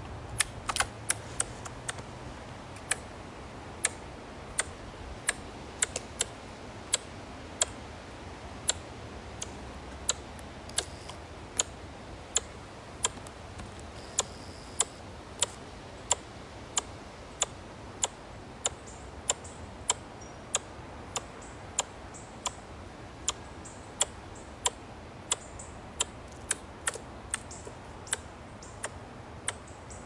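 Ezo squirrel (Hokkaido red squirrel) giving a long series of sharp tongue-click-like calls, about one or two a second, coming quicker in the first two seconds. The uploader takes them for a threat call.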